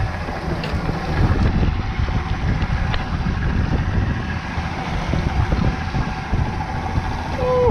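Wind buffeting the microphone over a Yamaha 200 outboard motor running at trolling speed, with the boat's wake churning.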